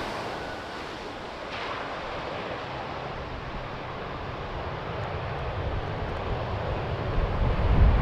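Jet noise from a British Airways Embraer 190's two turbofan engines as the airliner touches down and rolls out along the runway, a steady rushing sound fading as it moves away. Near the end it grows louder again, with a low rumble.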